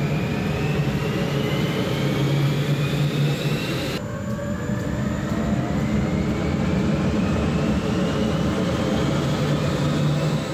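Rolls-Royce Viper 632-41 turbojet running on a test bench, its whine rising in pitch as it spools up, over a steady low rumble. An edit about four seconds in restarts the rising whine from a lower pitch.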